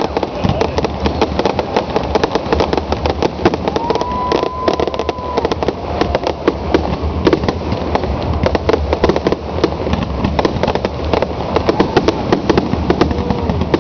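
Fireworks display: a rapid, unbroken barrage of bangs and crackles from aerial shells and rockets going off close by.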